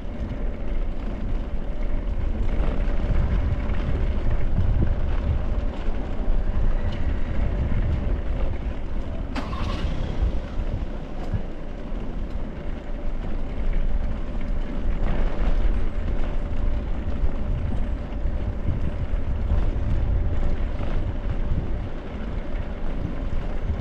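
Steady rumble of a bicycle rolling over a brick-paved street, with wind on the microphone. A sharp click comes about nine and a half seconds in.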